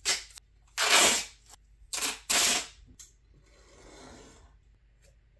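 Duct tape scraping and crackling as taped pieces are handled, in four short, loud bursts, then a fainter rub about four seconds in.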